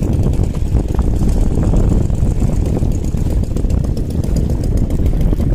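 Engine of a small wooden boat running steadily as it passes close by.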